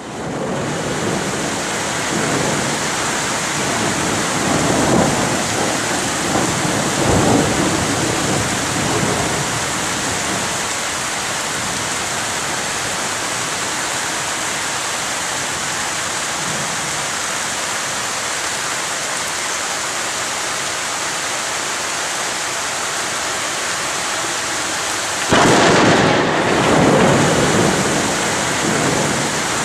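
Heavy downpour of a summer thunderstorm: rain hissing steadily and loudly, with rolling thunder rumbling a few times in the first ten seconds. A louder rumble of thunder comes in suddenly near the end.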